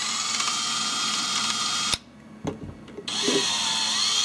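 Makita cordless drill spinning a 3D-printed gear-and-helix mechanism, in two runs of about two seconds each with a stop in between. The steady motor whine wavers slightly in pitch during the second run.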